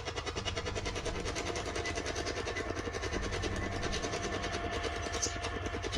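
Spirit box sweeping through radio stations, giving a rapid, even chopping of radio static.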